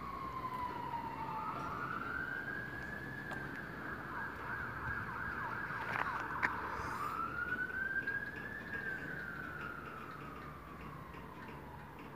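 Emergency vehicle siren in a slow wail, rising and falling in pitch over several seconds at a time, with a tangle of overlapping tones in the middle. A container freight train rumbles past underneath.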